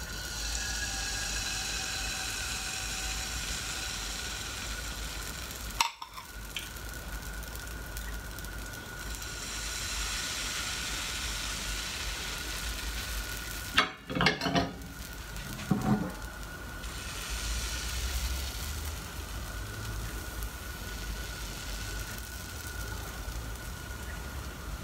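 Pancake-style paratha batter sizzling in a hot oiled nonstick frying pan, the hiss swelling and easing in stretches. A few sharp knocks come about a quarter of the way in and again a little past halfway.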